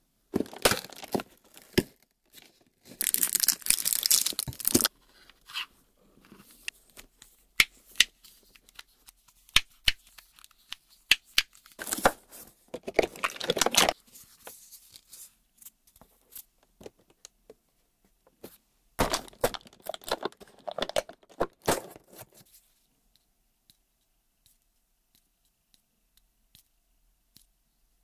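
Packaging of a cardboard toy advent calendar being torn open in three bursts of tearing and crinkling, with small sharp taps and clicks of toy handling in between.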